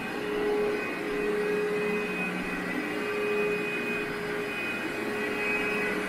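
Vacuum cleaner running steadily on carpet, with a steady motor whine over its airflow noise: pre-vacuuming the dry carpet before it is cleaned.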